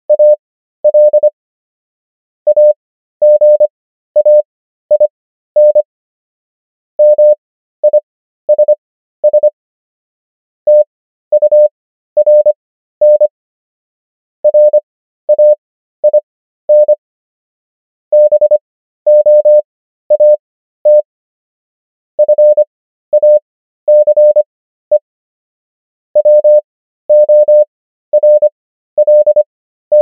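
Morse code sent as a single mid-pitched beep tone keyed in dots and dashes at 25 words per minute character speed. The characters are spread to 13 words per minute with Farnsworth spacing, spelling out common English words one at a time with longer gaps between words.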